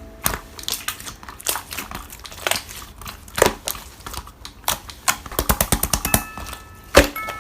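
Slime being squeezed and poked by hand, with quick irregular clicking and crackling pops of trapped air.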